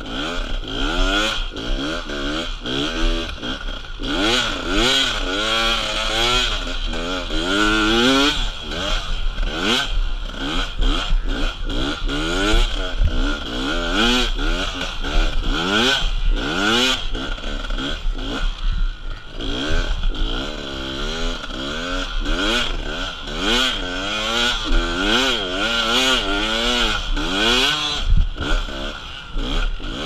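Dirt bike engine revving up and down again and again as it rides through sand whoops, heard close up from a helmet-mounted camera.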